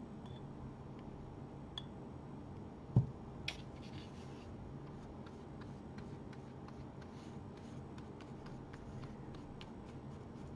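A small glass jar set down on a table with a thump about three seconds in, then a flat paintbrush mixing acrylic paint on a paper plate with soft, repeated scratching strokes over a steady low room hum.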